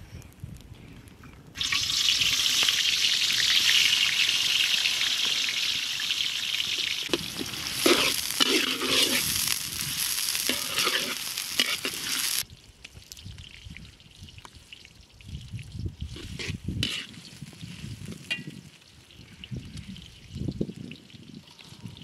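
Food sizzling in hot oil. A loud hiss starts suddenly about a second and a half in and cuts off abruptly about halfway through, with stirring noises in its second half. Quieter low knocks and rustling follow.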